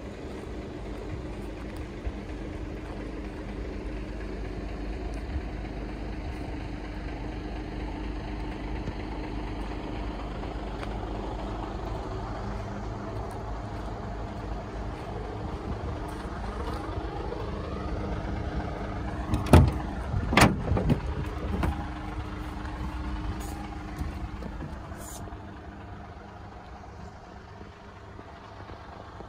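Volvo FH 500 tractor unit's 13-litre six-cylinder diesel idling steadily, with a few loud knocks and clatter about two-thirds of the way through.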